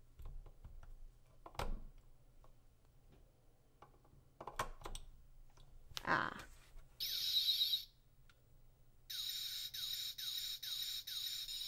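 Takara Tomy Mega Evolution Ring toy: a few plastic clicks as the Mega Stone is pushed into place, then its electronic sound effect, a short warbling chirp about seven seconds in and, from about nine seconds, a pulsing electronic tone repeating about twice a second, signalling the Mega Evolution as the ring lights up.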